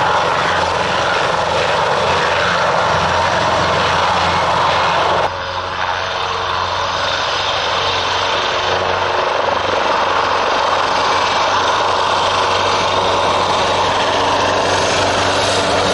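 Airbus H225M Super Cougar helicopter in low flight: steady, loud rotor and twin-turbine engine noise. The sound drops suddenly and shifts character about five seconds in, then carries on steadily.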